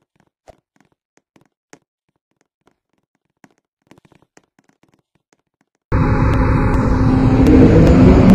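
Near silence with a few faint ticks, then about six seconds in the running sound of an MTR electric train cuts in suddenly: a loud rumble with the traction motors' whine rising in pitch as the train accelerates.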